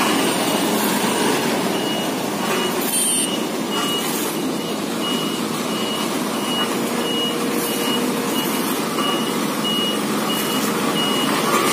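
Sakai SW652 tandem asphalt roller's engine running, with its reversing alarm beeping steadily, a single-tone beep a little under twice a second, starting about two seconds in.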